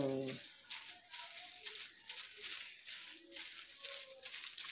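Plastic-gloved hand working wet henna paste through hair, a crinkling rustle repeating about twice a second.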